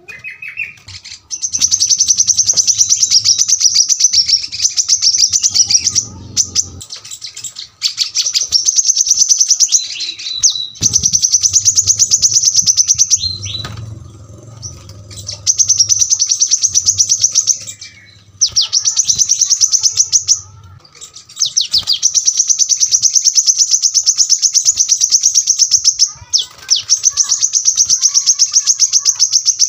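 Brown-throated sunbird (kolibri kelapa) singing in long, very rapid high-pitched trills, each running several seconds with short pauses between.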